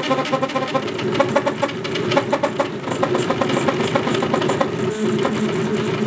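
3D printer's stepper motors whirring and chirping in quick, changing pitches as the print head darts about, printing small knobs.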